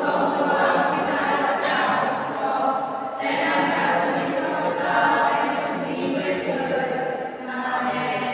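A choir singing, several voices together on held notes that shift to new notes every second or so.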